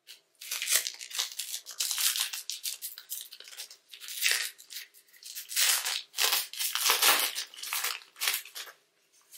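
Foil wrapper of a Panini Mosaic basketball card pack being crinkled and torn open by gloved hands, a run of quick sharp crinkles and tears. It starts about half a second in and stops just before the end.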